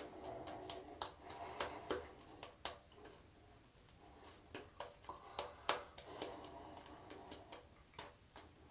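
Double-edge safety razor strokes through lathered stubble: a faint, irregular string of short, sharp scrapes and clicks, about a dozen in all.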